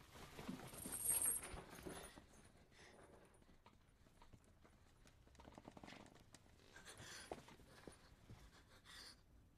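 Faint, irregular clicks and taps, with a short swell of rustling about a second in.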